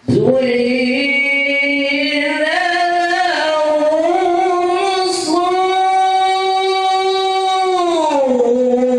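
One voice chanting in long, drawn-out melodic notes, in the style of Quran recitation. It starts suddenly, pauses for a quick breath about five seconds in, then holds one long note that slides down near the end.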